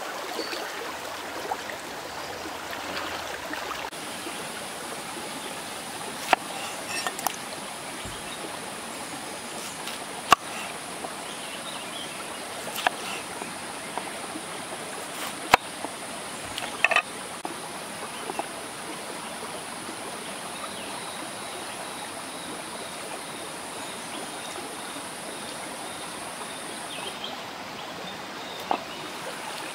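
Shallow rocky stream running steadily, with a scattering of sharp knocks from a cleaver cutting bitter melon on a wooden cutting board.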